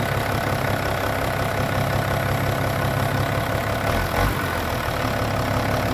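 Farm tractor's diesel engine running steadily in first gear, with a low bump about four seconds in.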